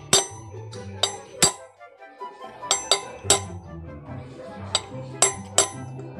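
Hammer tapping a socket to drive a bearing into a motorcycle front wheel hub: sharp metallic taps with a brief ring, about nine of them, often in quick pairs. Background music runs underneath.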